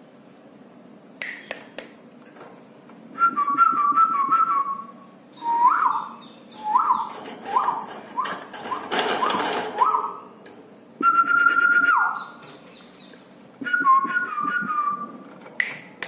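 Clear whistling in a run of notes. A few warbled notes come first, then five or six short rising swoops, then a held note that drops away, and more warbled notes near the end. A brief noisy rush breaks in about nine seconds in.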